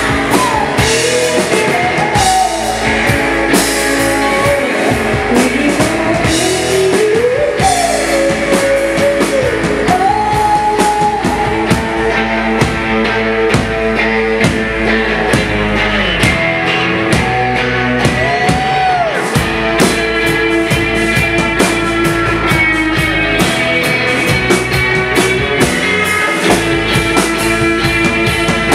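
A live rock band playing loudly: electric guitars, bass and a drum kit with steady cymbals, with a singer's voice sliding between notes over the first ten seconds or so.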